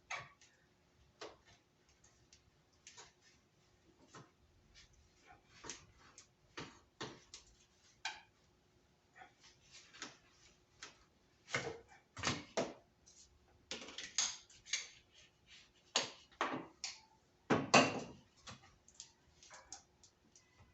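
Irregular clicks, taps and clanks of hand tools working the clamps off a radiator hose and pulling the hose free, with several louder clanks in the second half. A faint steady hum runs underneath.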